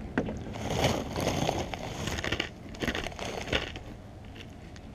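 Irregular crinkling and crunching close to the microphone: pretzels being eaten out of a snack bag.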